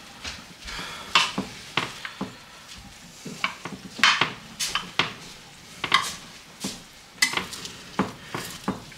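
Cutlery scraping and clinking against a dish in irregular strokes, about one or two a second, while baked rice porridge is scooped out and served.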